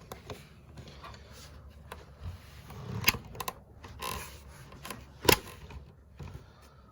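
A handful of scattered sharp knocks and clicks, the two loudest about three and five seconds in, over a low rumble.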